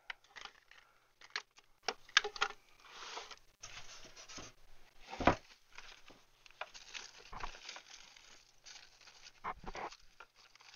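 Hands rummaging through stamps and craft supplies: a string of light clicks, rustling and crinkling, with a sharper knock about five seconds in and a couple more knocks near the end.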